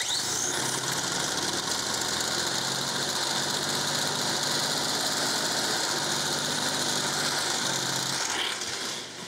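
Ransomes Antelope Mk1 mower's 98cc two-stroke single-cylinder engine catching abruptly and running loud and steady, held at full throttle by hand because it will not idle, then dropping away near the end. The owner puts the poor running down to very low compression.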